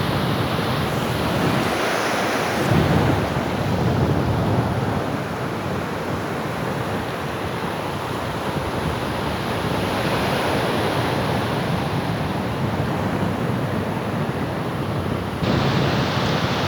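Sea waves washing onto the shore in a steady surf wash that swells and eases, with wind buffeting the microphone.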